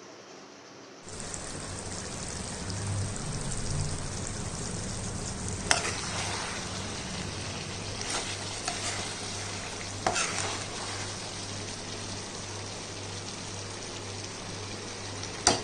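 Food sizzling as it fries in a pan, starting about a second in, with a few sharp utensil knocks against the pan as it is stirred.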